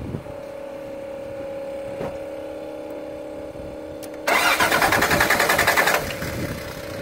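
Toyota pickup's 3.0 V6 cranked by its starter for under two seconds, a little over four seconds in, with a quick even pulsing, and not catching: there is no spark. A steady hum runs before and after the cranking.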